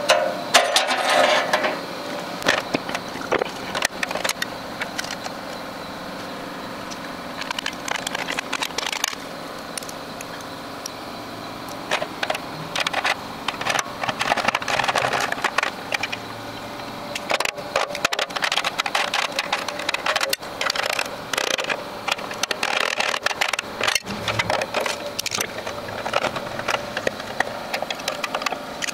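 Wire-feed welder laying down beads: a steady crackling sizzle of the arc as it burns through the sheet metal into the plate beneath, with a couple of brief breaks between welds.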